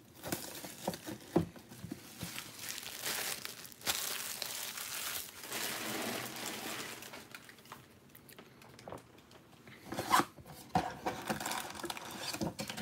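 Cellophane shrink-wrap crinkling and tearing as a trading-card hobby box is unwrapped and opened, with scattered taps and knocks of cardboard being handled. The rustling is steadiest in the middle, and there are sharper knocks near the end.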